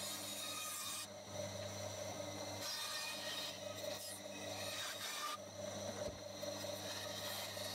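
Benchtop bandsaw running with a steady motor hum while its blade cuts a pine board. The rasping cutting noise comes and goes, dropping away for a moment about a second in and again past five seconds as the board is turned along the curve.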